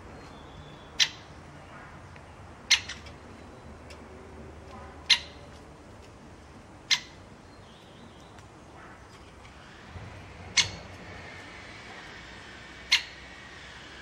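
Great spotted woodpecker at a seed feeder giving six sharp, short clicks a couple of seconds apart, with faint birdsong behind.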